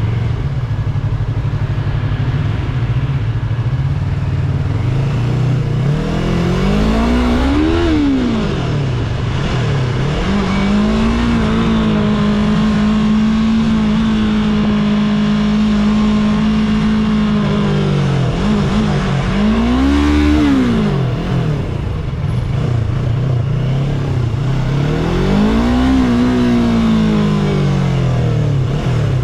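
Yamaha YZF-R3's 321 cc parallel-twin engine, through its stock exhaust, riding in traffic. It runs low, then rises and falls in three short throttle pulls, with a long stretch held at steady revs between the first and second.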